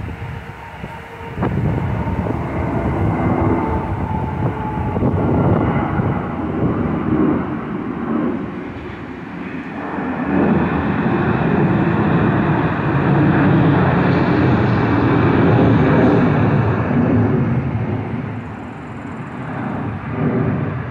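Jet engines of a climbing Boeing 757 airliner at takeoff thrust: a steady roar that grows stronger about ten seconds in and eases a little near the end.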